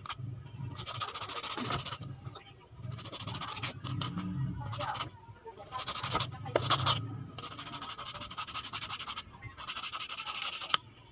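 Nail file rasping over an acrylic gel nail in repeated scratchy passes of a second or two, with short pauses between them: buffing the shine off the nail before the base coat.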